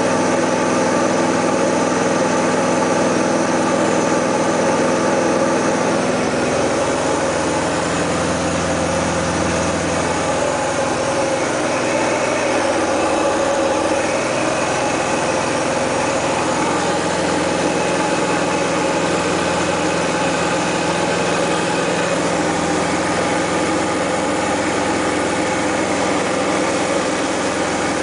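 Diamond DA-20 Eclipse's four-cylinder Continental IO-240 engine and propeller droning steadily in flight, heard inside the cabin. The low part of the drone shifts in pitch about six seconds in.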